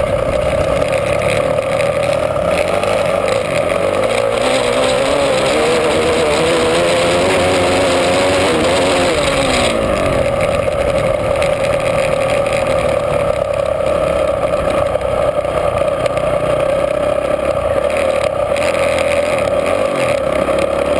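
Honda CRF450 single-cylinder four-stroke flat-track racing motorcycle engine running hard at speed, heard from the rider's helmet camera with rushing noise. The engine note holds fairly steady, dipping and rising briefly about eight to nine seconds in.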